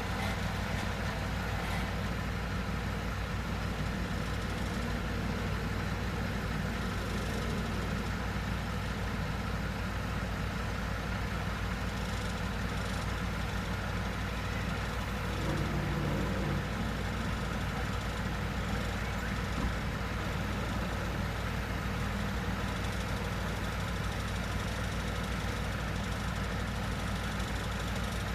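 Heavy truck engine idling steadily at night tramway works, a continuous low rumble with a brief small shift in pitch about halfway through.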